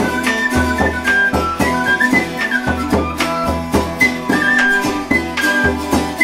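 Instrumental folk-style music: a high woodwind melody over plucked strings and a bass line.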